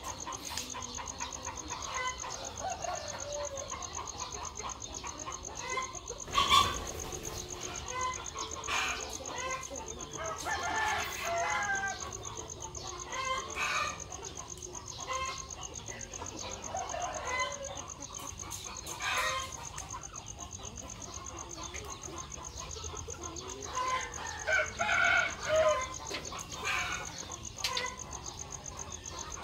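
A flock of hens and roosters clucking and calling on and off while they peck at feed, with a rooster crowing. One sharp, loud sound about six seconds in, and a louder run of calls near the end.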